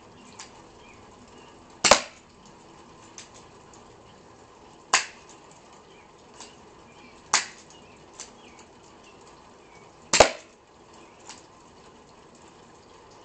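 Airsoft .44 Magnum pistol, cocked by hand, fired four times, each shot a sharp snap a few seconds apart. Fainter clicks fall between the shots.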